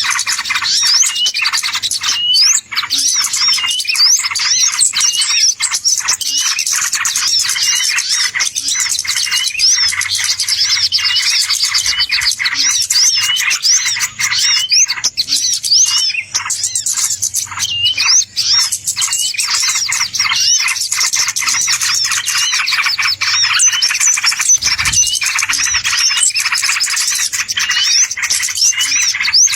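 Dense chorus of many small birds chirping and twittering, with rapid overlapping high calls and no let-up. This is a bird-lure recording of the kind played to draw wild birds in.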